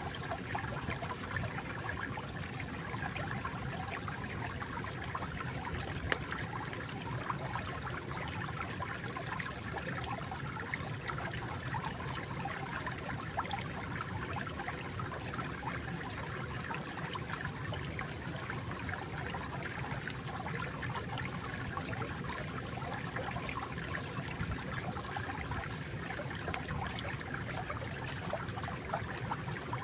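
Gentle flowing water running steadily, with one brief sharper click about six seconds in.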